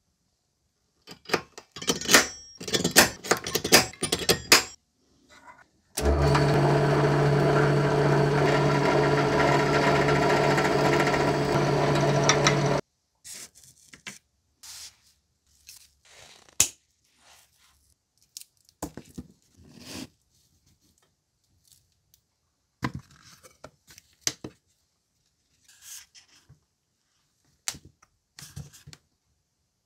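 Sharp clicks and scraping from a spring-loaded automatic center punch marking a small metal plate, then a small electric drill motor running steadily for about seven seconds and cutting off suddenly, as holes are drilled through the plate. Scattered light clicks and handling of small parts follow.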